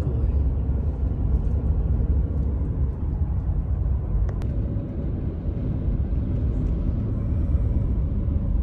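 Steady low rumble of a car driving, road and engine noise heard inside the cabin, with one sharp click about four seconds in.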